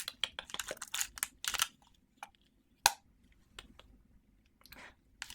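Close-miked ASMR prop handling: a quick run of crisp clicks and crackles, then a single sharp click about three seconds in and a brief rustle near the end.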